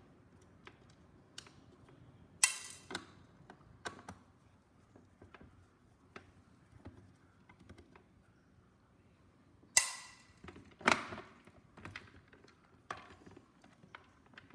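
Handling noise from a pressure cooker's plastic and metal lid hinge parts being worked with a screwdriver: scattered light clicks and taps. There are two loud sharp clacks, one a couple of seconds in and another about two-thirds of the way through, that one followed by a second clack a second later.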